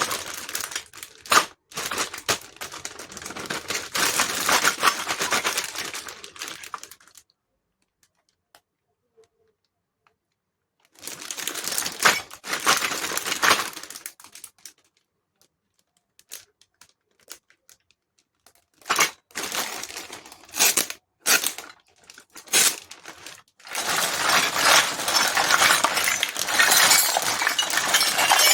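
Toy packaging being unwrapped: long spells of crinkling and tearing, with a quiet gap about 7 seconds in, then scattered sharp clicks and taps of small plastic pieces before more crinkling near the end.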